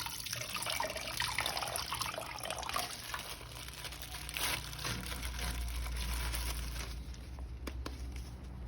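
Water running from a tap and splashing, as when a toy figure is rinsed under it; the sound thins out near the end.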